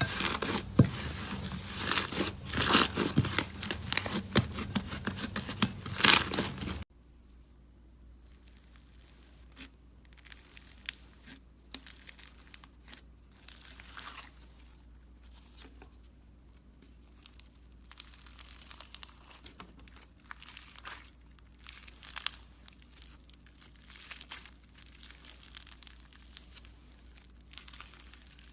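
Slime being squeezed and stretched by hand, with dense crackling and popping. The sound is loud for about the first seven seconds, then cuts off abruptly to a quieter stretch of softer, scattered pops.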